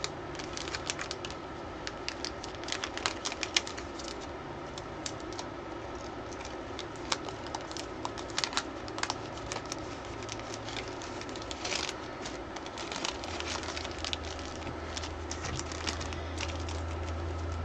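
Clear cellophane packaging crinkling and rustling as paper craft pieces are slid and handled in it, with many small irregular clicks and crackles.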